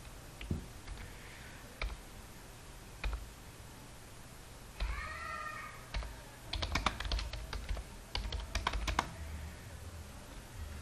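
Computer keyboard typing: a few single clicks spaced a second or so apart, then a quick run of keystrokes about six seconds in that lasts around three seconds.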